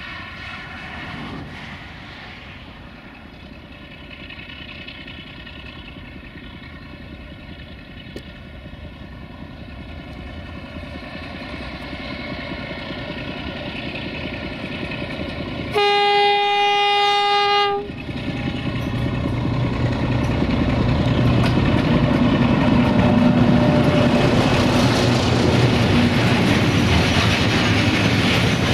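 Class 060-DA (LDE2100) diesel-electric locomotive with its Sulzer engine approaching with a train of tank wagons, its engine note growing steadily louder. About halfway through it sounds one horn blast of about two seconds, then the loud rolling noise of the tank wagons passing close takes over.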